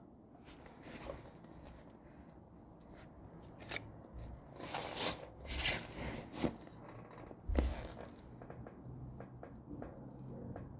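Hands handling wiring and plastic parts on an exercise bike: scattered clicks and rustling that grow busier about four seconds in, with one sharper knock at about seven and a half seconds.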